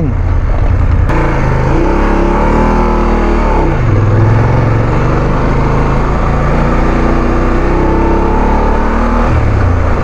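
Motorcycle engine running under way over a rough track, its pitch falling and rising with the throttle: a dip about three to four seconds in, and another near the end.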